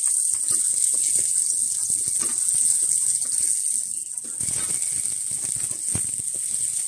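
Chopped garlic and onion sizzling in hot oil in a stainless steel pot, with a steady hiss, while a wooden spatula scrapes and taps against the pot as it is stirred.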